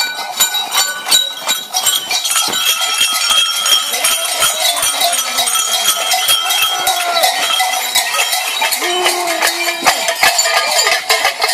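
Many cowbells clanging and jangling without a break, worn by people in straw costumes moving along the street.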